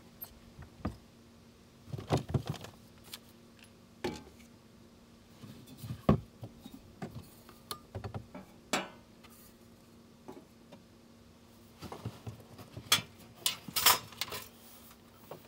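Irregular clinks, taps and knocks of camp cookware and utensils being handled, over a faint steady hum.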